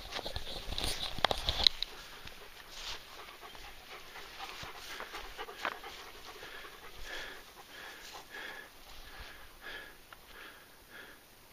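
A dog panting in quick, even breaths close to the microphone. A louder burst of knocks and rustle comes in the first two seconds.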